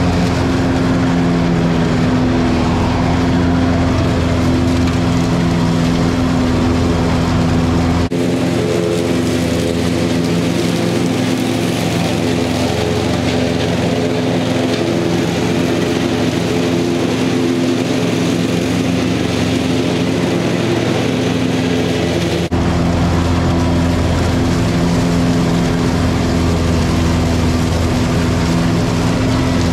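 Cub Cadet Ultima ZTX zero-turn mower's engine running steadily while mowing, with a steady hum. For a long middle stretch it is heard from farther off, and the deep rumble drops away, cutting back to close up near the end.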